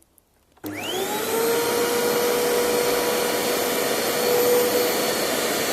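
Vax upright vacuum cleaner switched on about half a second in, its motor whining up to speed and then running steadily. The brush bar is not working, by the owner's account.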